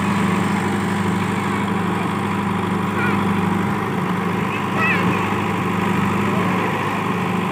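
JCB 3DX backhoe loader's diesel engine running at a steady, even drone while the rear backhoe arm digs and dumps soil. A few short high chirps come in over it about three and five seconds in.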